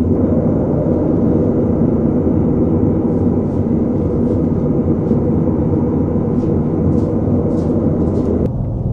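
A loud, steady low rumbling drone, a suspense soundtrack effect. It drops abruptly to a deeper, thinner rumble near the end.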